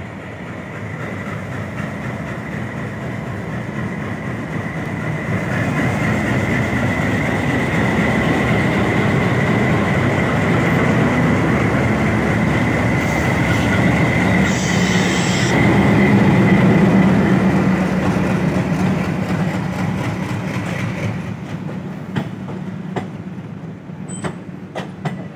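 Twin WDM-3A diesel-electric locomotives pull away and pass close by under power, their ALCO diesel engines running with a deep rumble and a steady high whine. The noise builds and then eases as the locomotives go by. Near the end the coaches follow, their wheels clicking over the rail joints.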